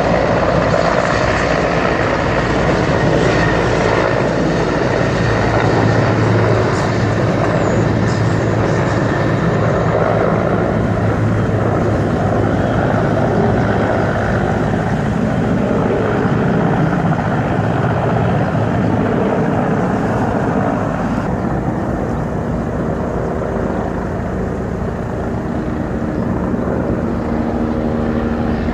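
Helicopters flying low overhead: steady rotor and engine noise with a low hum. Near the end a steady pitched drone joins in.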